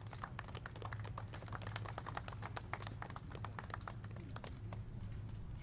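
Many press camera shutters clicking rapidly and irregularly, several clicks a second, over a steady low hum.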